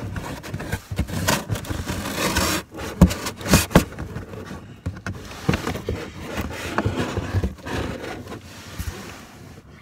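Scraping, rubbing and knocking against the inside of a closed box as someone shifts about and pushes at its flaps, with a cluster of louder knocks about three to four seconds in.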